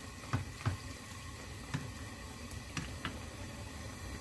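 Pork and kimchi stir-frying in a pan over high heat: a faint steady sizzle, with several irregular knocks of a wooden spatula against the pan as the food is stirred.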